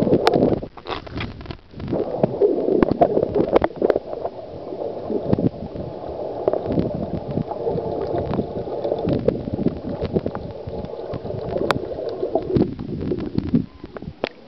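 Muffled water sloshing and gurgling heard through a camera held underwater in a swimming pool, with many small knocks and clicks. The sound drops away near the end as the camera comes up out of the water.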